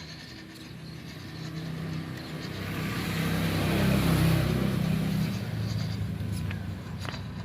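A motor vehicle driving past: engine and tyre noise build up, are loudest about four seconds in, then fade away.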